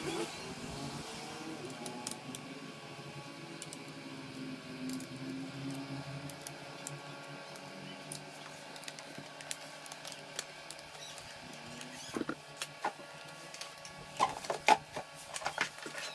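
Small sharp clicks and taps of laptop parts being handled, bunched near the end, over a steady background hum.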